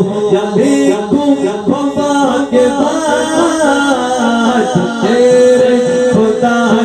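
A man singing an Islamic devotional naat into a microphone, with gliding, ornamented notes and one long held note about five seconds in.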